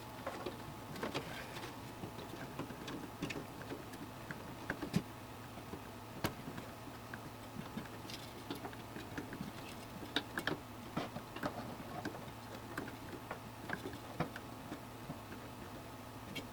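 Scattered small plastic clicks and ticks of a CPU power cable connector being handled and pushed at its motherboard socket, over a low steady hum.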